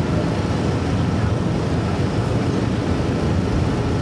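Steady low rumble of engine noise.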